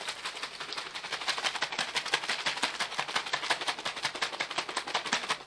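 Heavy whipping cream and sugar-free Jell-O powder sloshing and knocking inside a small lidded container shaken hard by hand, in rapid, even strokes several times a second. The cream is still thin enough to slosh; the sound dies away once it whips thick.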